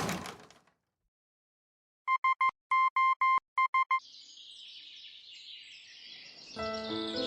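A loud boom fades out, then after a short silence a single-tone electronic beep sends SOS in Morse code: three short beeps, three long, three short. Faint birdsong follows, and music comes in near the end.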